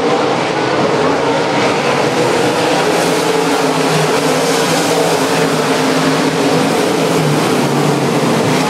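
Race car engines running at speed around the track, a loud, steady drone of several engines.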